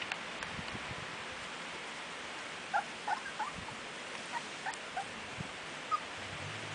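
Border collie puppies about three weeks old squeaking: about seven short, high squeaks, starting near the middle and ending shortly before the end, over a faint steady hiss.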